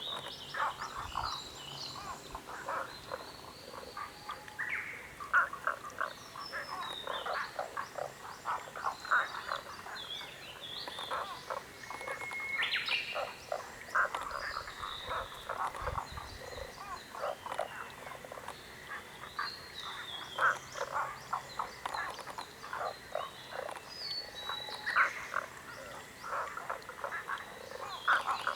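A chorus of many frogs croaking, with dense, overlapping short calls throughout and scattered higher chirps above them.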